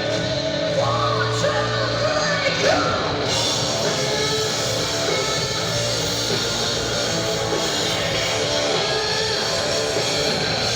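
Live hard rock band playing a song, with a woman singing over electric guitars and drums. About three seconds in, the full band comes in and the sound gets brighter.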